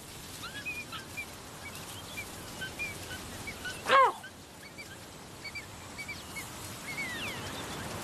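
A tawny eagle gives one short, loud call about four seconds in, over a steady background of small birds chirping.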